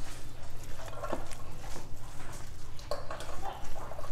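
Fresh cheese curds being stirred and squished by hand in a cloth-lined colander to mix in salt: soft, irregular squishing and cloth rustling with a few light knocks, over a steady low hum.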